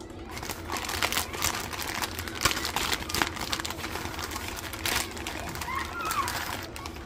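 Irregular rustling and clicking of hard plastic parts and packaging being handled during assembly, with faint distant voices near the end.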